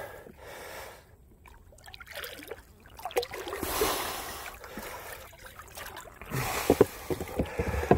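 Water sloshing and splashing around a person wading in a river, swelling twice, with a few light knocks near the end.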